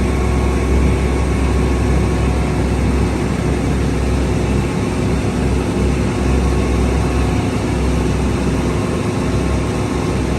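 Tour boat's engine running steadily under way, a continuous low rumble.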